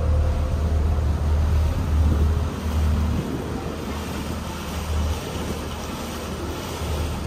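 Small river ferry under way: a low rumble with a rushing wash of wind and water, heavier for the first two or three seconds and then easing.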